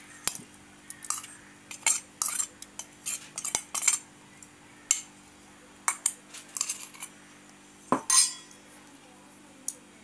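Irregular metal clinks and knocks of utensils against a stainless-steel mixer-grinder jar as a lump of jaggery is tipped and scraped in onto boiled mango pieces. The loudest knock comes about eight seconds in and rings briefly.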